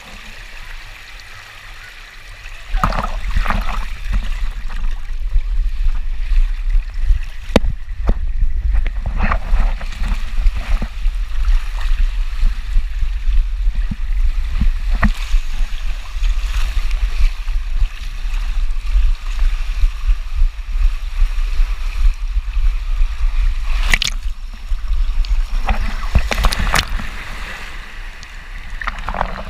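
Wind buffeting the camera microphone: a heavy, gusting low rumble that sets in abruptly about three seconds in, with a few faint knocks and distant voices over it.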